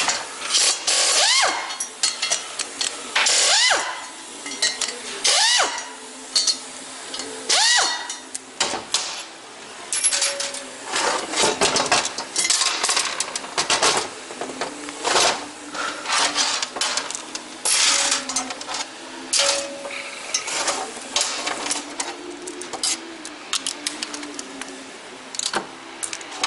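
Hand tools clinking on metal as the spark plugs are taken out of a VW 1.8T (AWP) cylinder head. Four short sounds that rise and fall in pitch come in the first eight seconds, then a long run of sharp metallic clinks and taps.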